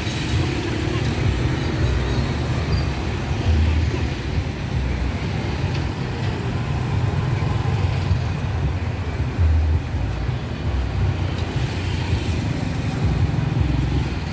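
Steady street traffic rumble, with motor vehicles passing close by, and some voices in the background.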